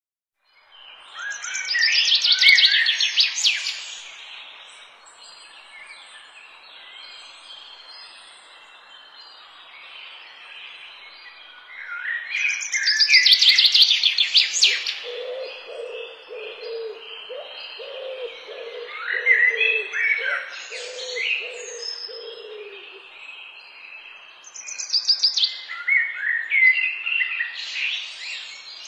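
Birds chirping and trilling in loud bursts every several seconds, with a lower note repeated over several seconds in the middle.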